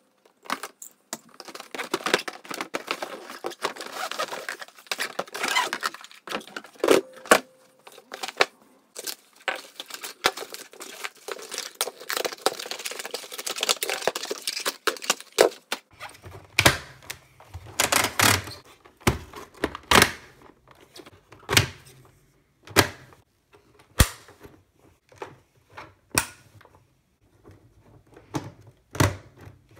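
Cardboard packaging being handled and pulled away, with dense rustling and scraping, then a string of separate sharp plastic clicks and knocks about a second apart from about halfway in, as the Nerf Mega Mastodon's plastic body and dart drum are handled.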